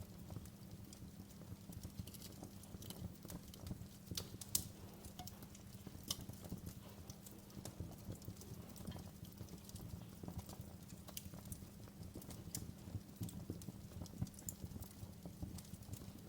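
Wood fire in a fireplace crackling, with irregular sharp pops and snaps over a low steady rumble; the sharpest pop comes about four and a half seconds in.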